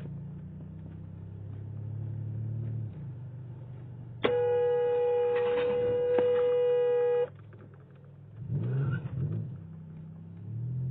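A car horn blown in one long steady blast of about three seconds, a warning at a driver who has run a stop sign, over the low hum of the car's engine as it slows to a stop.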